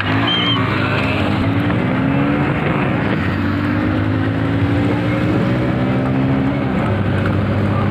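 Small motorcycle engine running steadily under way, its pitch climbing gradually through the middle, over a steady rush of noise.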